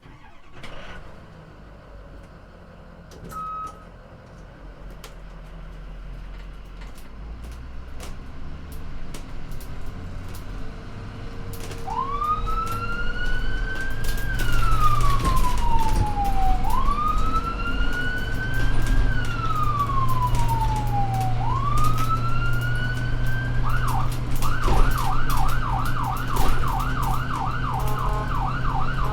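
Ambulance driving with its engine running, the engine growing louder. About twelve seconds in the siren starts: three slow wail cycles, each rising quickly and falling slowly. It then switches to a fast yelp of about four sweeps a second.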